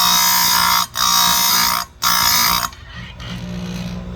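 Electric chain grinder's wheel grinding a chainsaw chain cutter tooth: three harsh grinding passes of just under a second each with short breaks between, then the grinder motor humming on its own.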